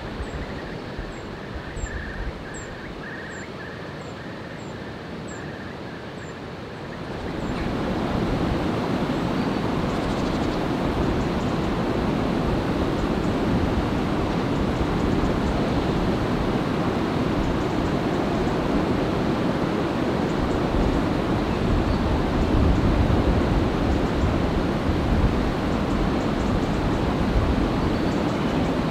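Water rushing steadily over a small weir on a woodland stream, coming in louder about seven seconds in. Before that, a quieter hiss with a string of short high chirps and a repeated lower note.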